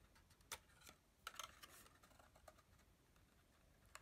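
Faint handling of cardstock: a few small taps and crinkles as paper flaps are folded across and pressed into place by hand, with a small cluster about a second and a half in.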